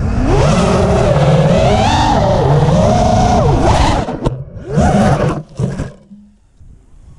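FPV racing drone's motors whining, the pitch rising and falling with the throttle, heard from the drone's own onboard camera. About four seconds in the sound breaks off, comes back in a short burst, then dies away as the drone crashes into the grass.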